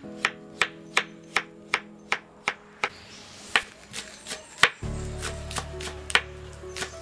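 Kitchen knife chopping on a wooden cutting board: steady strokes about three a second through chayote, then fewer, sharper chops through green onions. Background music plays throughout, with a low bass part coming in about five seconds in.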